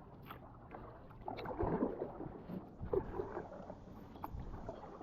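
Kayak paddling in calm water: soft, irregular paddle splashes and drips, with a few light clicks.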